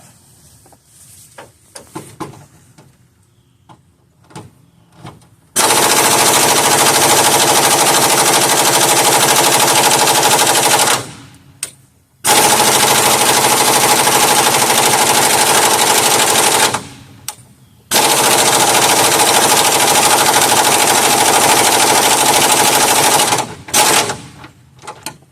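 Pneumatic impact wrench hammering on a stuck bolt in three long bursts of trigger, with short pauses between them, after a few light clanks of the tool being set on the bolt.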